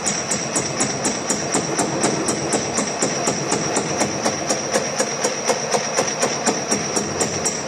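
Metal shaping machine cutting teeth into a steel gear blank: the cutter strokes back and forth at a steady rhythm of about four strokes a second, each stroke a sharp metallic click over the running machine.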